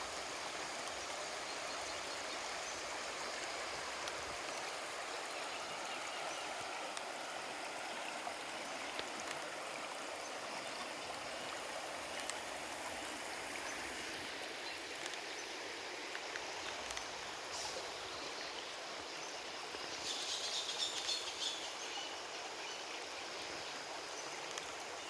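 River water flowing steadily over rocks in an even rushing wash. About twenty seconds in, a brief cluster of high bird chirps rises above the water.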